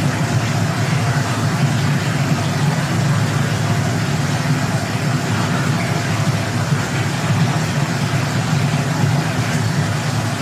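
Steady, unbroken low rumbling noise with a faint hiss above it. It has no rhythm and no change in pitch or level, like the masking sound bed of a subliminal audio track.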